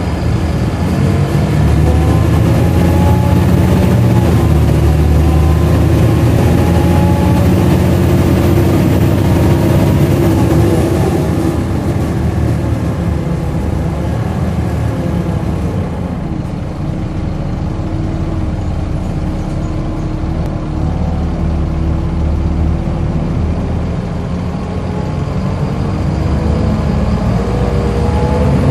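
A Volvo B7LA articulated bus's six-cylinder diesel engine heard from inside the bus, pulling and changing gear, its note rising and falling through the first half. About halfway it drops to a lower, steadier note, then picks up again near the end.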